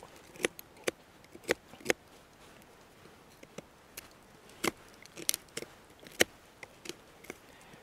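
Folding knife scraping and chipping the hard black outer crust off a chunk of birch chaga: a run of short, irregular scrapes and clicks.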